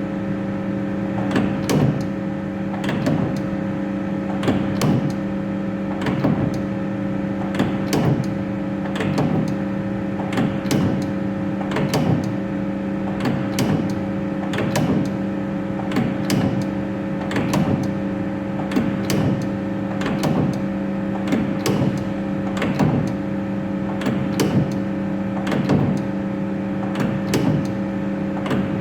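CNC lathe tool turret on test, indexing over and over: a mechanical clunk about once a second, sometimes doubled, over the steady hum of its drive motor or pump.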